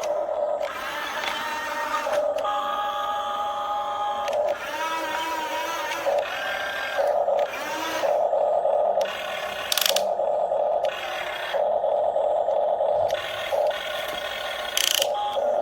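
Small electric motors of a radio-controlled grapple excavator whining in repeated on-off bursts of about a second each, starting and stopping as the controls are worked, with the pitch shifting between bursts.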